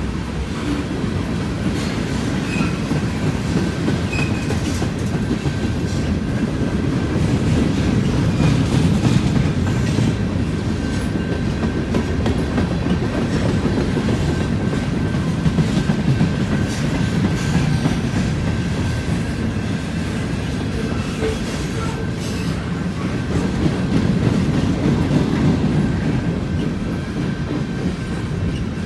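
Freight cars of a mixed freight train rolling past: a steady rumble of steel wheels on the rails, with irregular clicks as wheels cross rail joints and a faint steady high whine.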